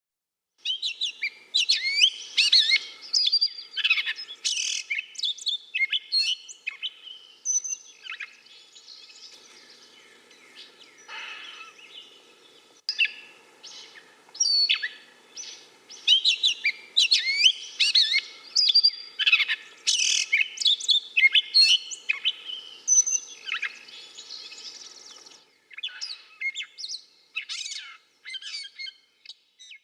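Gray catbird singing: a long, rambling string of rapid, varied squeaky, chattering and whistled phrases with short pauses between them. The song thins out to a few scattered notes around ten seconds in, then picks up again.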